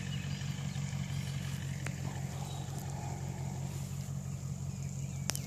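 A vehicle engine running steadily at low speed, giving an even low drone, with a few faint clicks over it.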